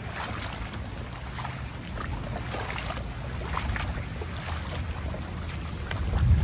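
Wind rumbling on the microphone outdoors in wet weather, with scattered light splashy ticks over it; the rumble grows louder near the end.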